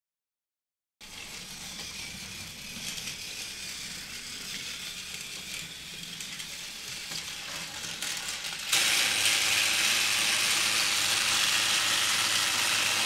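Battery-powered Trackmaster Thomas toy engine's small motor and gears whirring steadily as it runs along plastic track. It starts after a second of silence and jumps suddenly louder about nine seconds in.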